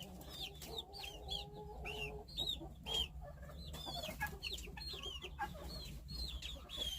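A brooder full of young chicks peeping: many short, high chirps overlapping continuously.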